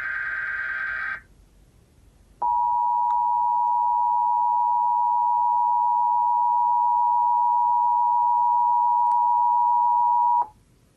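Emergency Alert System test: the end of a shrill, warbling SAME digital header data burst, then after about a second's pause the EAS two-tone attention signal, a steady 853 and 960 Hz dual tone held for about eight seconds before cutting off sharply.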